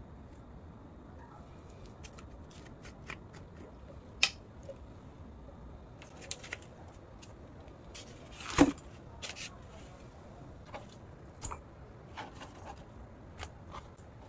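Scattered light clicks, taps and rustles of objects being handled, with a sharp click about four seconds in and a louder, fuller knock a little past eight seconds.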